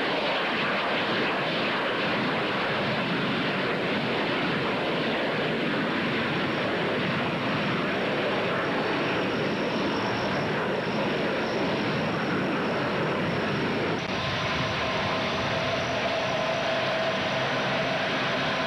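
Steady jet noise from a Douglas EA-3B Skywarrior's twin turbojets as it flies low past the field and draws away. About fourteen seconds in, the sound changes and a steady high whine joins the noise.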